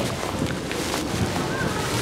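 Outdoor ambience with the light clicks of table tennis balls struck by paddles and bouncing on concrete tables, over a steady rush of background noise and faint distant children's voices.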